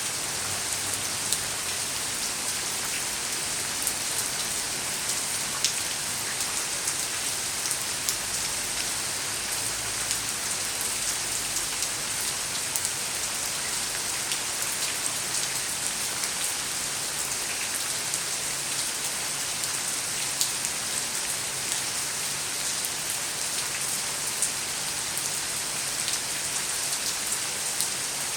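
Steady rain falling on hard surfaces, an even hiss with many individual drops ticking throughout.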